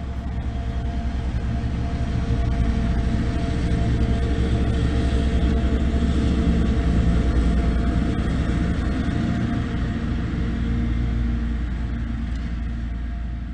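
An engine's steady drone that grows louder, peaks about halfway through, then slowly fades, like a motor passing by.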